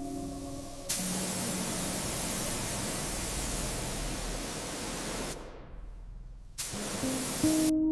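Pressure washer spraying: a steady hiss that starts abruptly about a second in, fades out after about five seconds, and comes back briefly near the end.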